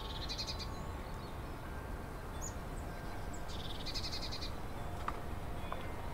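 A bird singing a short, rapid trill, twice about four seconds apart, with a few brief higher chirps in between, over a steady low background hum.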